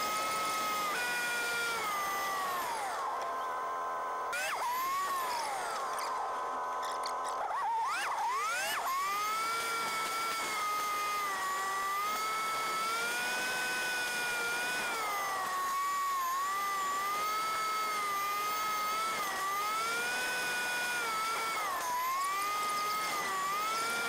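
Cab of a 1956 Dodge Power Wagon on the road: a high-pitched whine from the truck's gearing, rising and falling in pitch with road speed. It dips a few seconds in and swoops up and down before climbing again, with road noise underneath.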